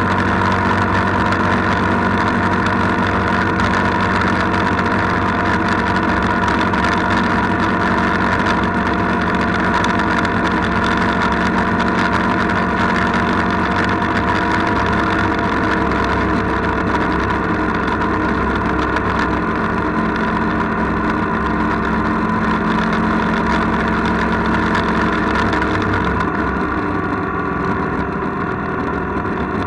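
A vehicle's engine running at a steady speed while cruising along the road, a continuous hum of several even tones. It eases off slightly near the end.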